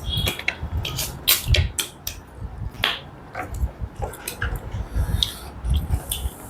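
Close-miked eating sounds: chewing with irregular wet mouth clicks and smacks.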